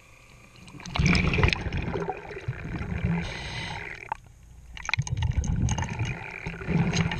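Water sloshing and gurgling in irregular surges as the camera passes from the surface to below the waterline beside a boat hull, with a brief lull a little past the middle.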